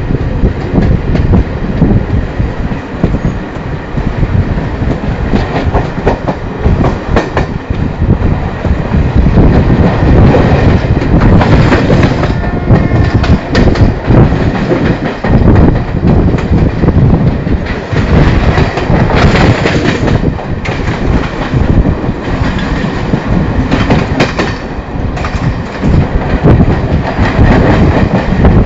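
Express passenger coaches running at speed, their wheels clattering continuously over rail joints and points, with irregular louder runs of clatter.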